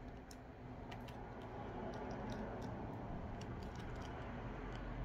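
Faint, scattered small clicks and ticks of a smartphone's back cover and tools being handled as the adhesive-held back is eased off, over a low steady hum.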